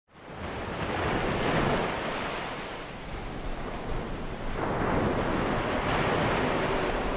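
Ocean surf breaking and washing up a beach. It fades in at the start and swells, then a fresh wave surges in about four and a half seconds in.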